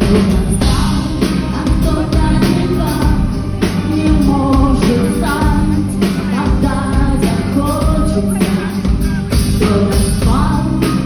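A pop-rock song with a woman singing over drums, bass and guitar.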